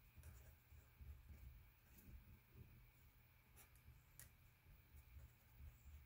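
Faint scratching of a pen writing on paper, with a few light ticks.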